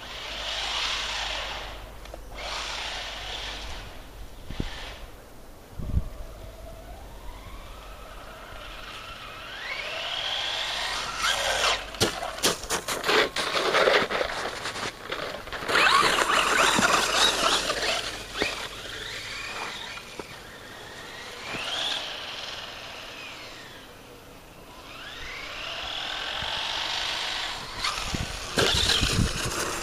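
Traxxas Stampede 4x4 RC truck's brushless motor (Turnigy 3665 3190kv, on a 3S LiPo) whining up in pitch as it accelerates, several times over. Between runs come stretches of tyres churning snow, and there are short knocks near the end as the truck comes off a jump.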